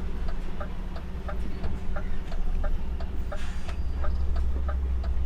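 Heavy goods truck's diesel engine running low and steady from the cab while creeping forward, with an even ticking about three times a second.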